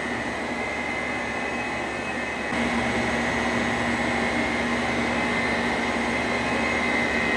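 Steady hum of air handling and equipment inside an industrial electrical room, with a constant high whine; it gets louder about two and a half seconds in.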